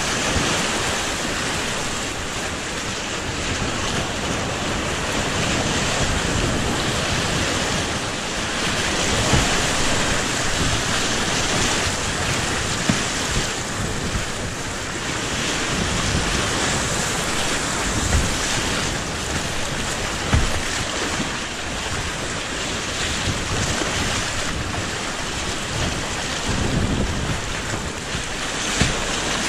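Rushing whitewater of the river Mur churning around a whitewater kayak in rapids, a steady loud roar of water with brief low splashes and thumps now and then.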